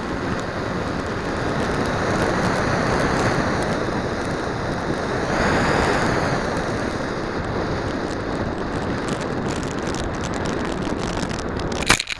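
Rushing wind and electric motor and propeller noise from an FPV flying wing in flight, heard through its onboard camera's microphone; it swells louder briefly about halfway through. Near the end a few sharp knocks as the plane lands in the grass, and the noise cuts off suddenly.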